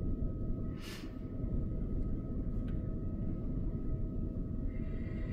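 Fire engine running with its pump working a hose line: a steady low rumble under a constant whine. A brief hiss comes about a second in.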